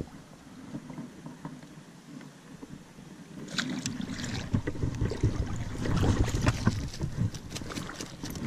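Water splashing and sloshing as a rubber-mesh landing net is scooped through a shallow stream and a brook trout thrashes in it, starting about three and a half seconds in.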